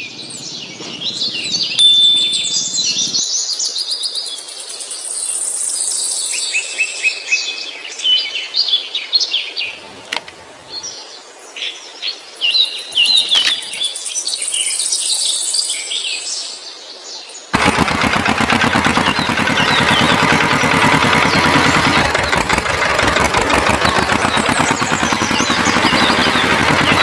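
Birds chirping and trilling, many short high calls, for most of the first two-thirds. About two-thirds of the way through it cuts suddenly to a loud, steady motor running with a fast rough vibration.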